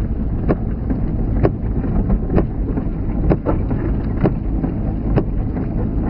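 Inside the cabin of a Toyota Corolla wagon crawling a rutted dirt road in rain: a steady low rumble of engine and tyres, with a sharp tick about once a second from the sweeping windshield wipers.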